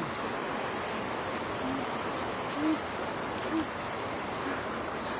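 Shallow river water running steadily over the riverbed. Four short, low tones sound about a second apart through the middle.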